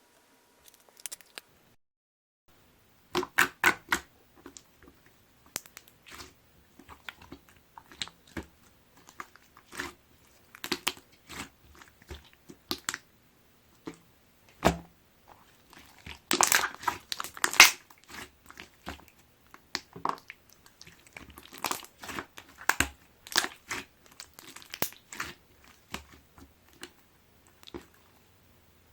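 Clear slime being pressed and stretched by hand, its trapped air bubbles popping in irregular sharp clicks and crackles. They start about three seconds in and come thickest around the middle.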